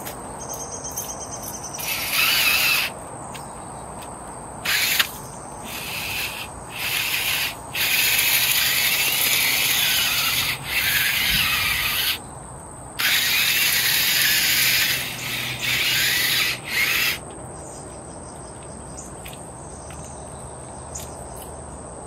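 Cordless drill spinning an auger bit into gravelly soil to dig a planting hole. It runs in about eight trigger-pulled bursts, the longest about two and a half seconds, with gravel scraping against the bit.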